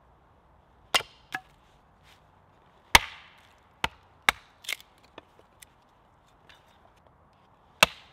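Hatchet with a stick of wood on its blade struck down onto a wooden chopping block, splitting the stick for kindling: a string of sharp wooden knocks, the loudest about three seconds in and another near the end, with lighter taps between.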